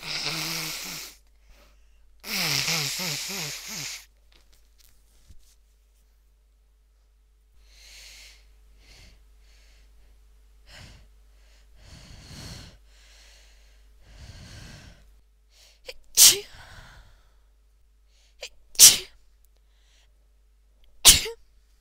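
A woman with a head cold building up to sneeze: loud, breathy, half-voiced gasping inhales, then quieter shaky breaths. Near the end come three sharp sneezes, about two and a half seconds apart.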